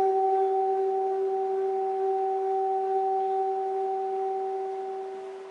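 Steady tone of a single low-mid pitch with one overtone, played through a loudspeaker to vibrate coloured powder on a membrane into patterns; it fades slowly toward the end.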